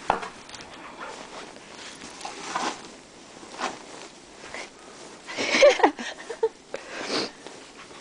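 Siberian husky snuffling and crunching with its muzzle buried in snow, eating snow, in short bursts about every second; the loudest bursts come a little past halfway.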